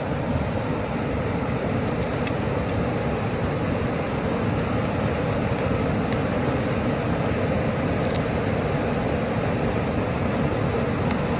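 Steady rush of a waterfall, an even roar of falling water, with a couple of faint clicks.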